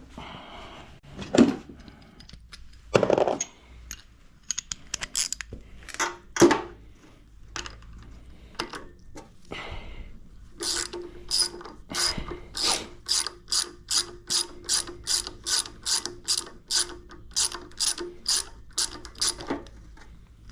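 Ratchet wrench clicking in steady strokes, about two to three clicks a second, as a spark plug is backed out of the engine. Before that, a few scattered knocks of tools being handled.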